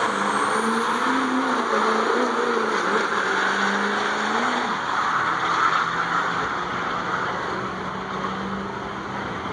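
Diesel pickup truck accelerating hard at full throttle down a drag strip, with a high whistle climbing in pitch near the start. The engine note wavers, then steadies and slowly fades as the truck pulls away.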